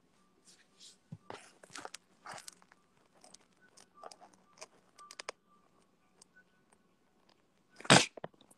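Faint, scattered crunching and crackling, many small clicks in irregular clusters, with one short, loud burst of noise about eight seconds in.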